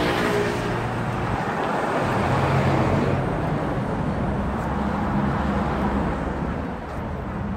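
Street traffic noise: motor vehicle engines running with a steady low hum over road noise.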